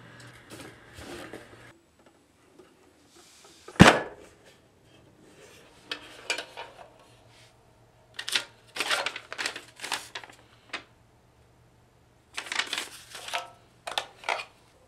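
A single sharp clack about four seconds in, then bursts of rustling and light clatter as the contents of a metal box are handled and a folded paper note is unfolded.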